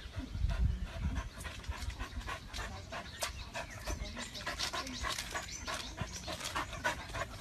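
Dog panting with quick, repeated breaths, with a few low thumps in the first second.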